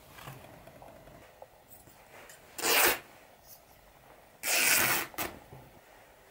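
White cotton cloth torn by hand: two ripping tears about two seconds apart, the second longer with a short extra rip just after it, over faint rustling of the cloth.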